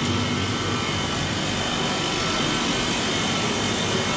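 Steady vehicle noise: a continuous, even rumble and hiss that neither rises nor falls.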